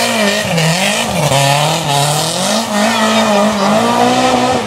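Rally car engine revving hard through a hairpin, its pitch rising and falling again and again with the throttle, with the tyres squealing as the car slides.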